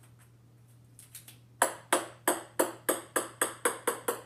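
Small ball bouncing on a hard wooden floor: sharp ringing clicks start about one and a half seconds in and come faster and fainter as the bounces shorten.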